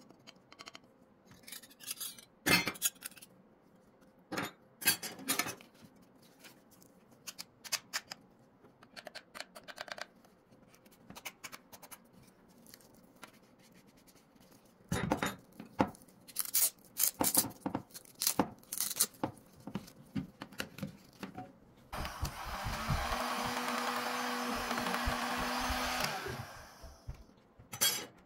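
Metal heat-gun nozzle attachments and plastic packaging being handled, with scattered clicks, clinks and rustles. About 22 seconds in, an EPA EEF-2000-6 electric heat gun is switched on: its fan motor runs with a steady blowing hum for about four seconds, then it is switched off.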